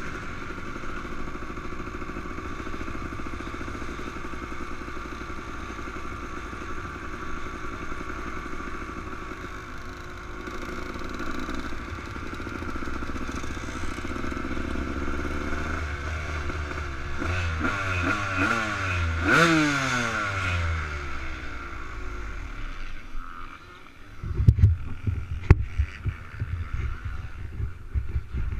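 Honda CR250R two-stroke single-cylinder dirt bike engine running at low speed, with a rise and fall in pitch a little past the middle where it is loudest. Near the end the engine note drops away and irregular knocks and thumps follow.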